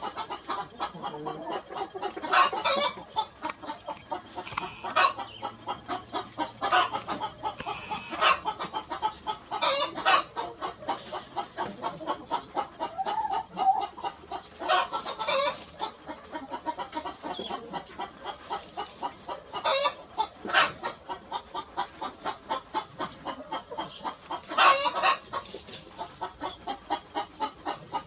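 Chickens clucking: a steady run of short, quick clucks, with a louder call breaking out every few seconds.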